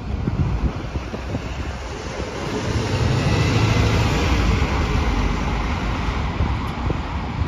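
Single-deck diesel bus pulling away and passing close by, its engine and tyres rising to their loudest about three to four seconds in, then fading as it drives off.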